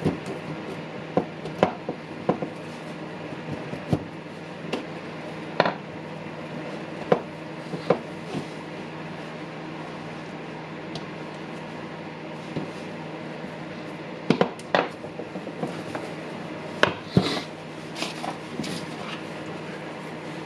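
Scattered sharp clicks and knocks of small plastic and metal parts being handled and fitted while a cordless impact driver is reassembled, over a steady background hum.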